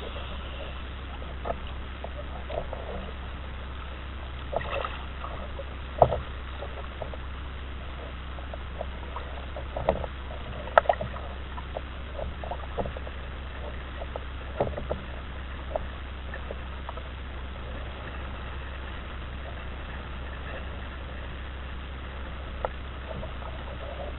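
Water lapping and splashing irregularly against a floating multispar seastead model, with a few sharper slaps, over a steady low hum.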